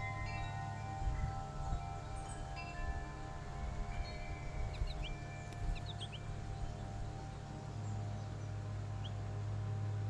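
Wind chimes ringing, several tones overlapping and slowly dying away, over a steady low hum. A few short high chirps from small birds come around the middle and once near the end.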